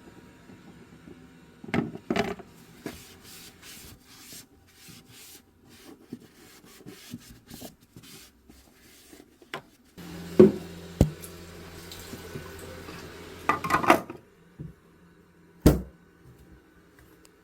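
Scattered clicks, knocks and light clatter, with a small motor humming steadily for about four seconds in the middle, starting and stopping abruptly.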